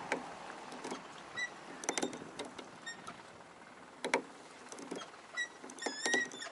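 Light clicks and knocks from a homemade wooden flip-up boat rudder linkage being worked by hand, with several short high squeaks, the sharpest knock about four seconds in.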